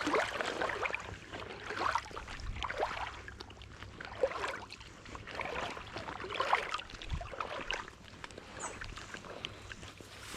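Shallow creek water splashing and sloshing in irregular bursts.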